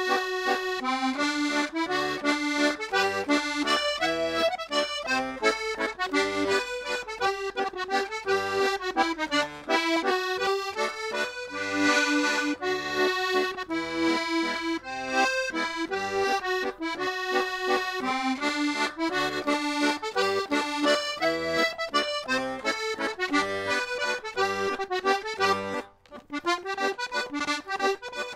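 Button accordion playing a waltz tune solo, a lively melody with chords over bass notes. There is a brief break near the end.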